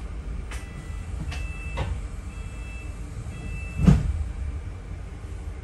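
Interior of a double-decker bus: a steady low engine and road rumble with several sharp knocks and rattles, the loudest about four seconds in. A high steady tone sounds three times in the middle.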